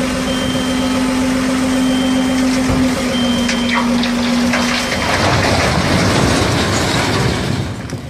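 IVECO tipper truck running with a steady tone as its bed tips up, with a few clicks. About five seconds in, the load of large stone blocks slides out and falls to the ground in a loud, gritty rumbling rush, which fades just before the end.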